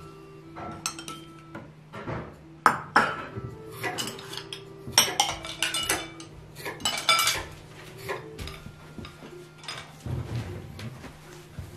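Ceramic bowls and wooden chopsticks clinking and knocking as dishes are gathered up from a table after a meal: a run of irregular clinks and knocks, several sharp and briefly ringing, with a steady low hum underneath.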